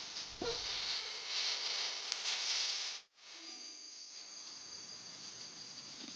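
Forest insects calling over a steady hiss. The sound cuts out for a moment about halfway through and comes back quieter, with one thin, high, steady insect tone.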